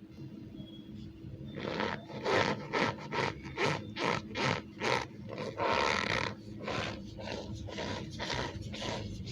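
Gym chalk mixed with cornstarch being worked, giving squeaky sounds as a quick series of short strokes, about two to three a second. The strokes begin about a second and a half in, with one longer squeak near the middle.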